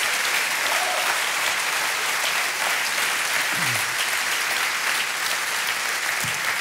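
Studio audience applauding steadily, a dense patter of many hands clapping at once.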